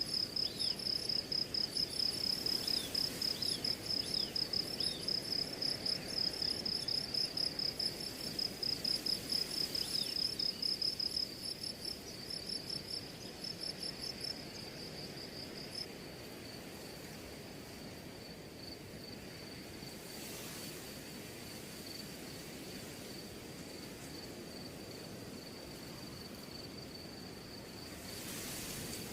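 Insects chirping in a high, fast-pulsing trill, like crickets. The trill is loudest for the first eleven seconds or so, then drops to a fainter, steadier trill over a low background hiss.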